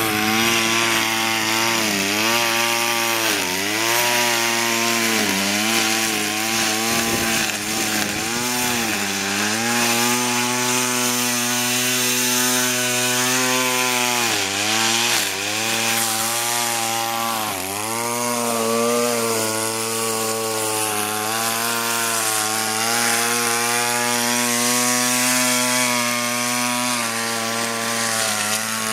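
String trimmer's small two-stroke engine running at high speed with its throttle held wide open. The pitch sags again and again as the line bogs in the weeds, then holds steadier near the end.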